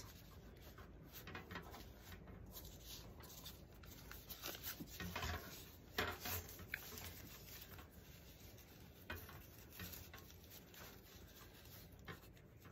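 Thin plastic tablecloth strips rustling and crinkling faintly as they are knotted onto a wire wreath frame, in irregular bits with a few sharper crinkles.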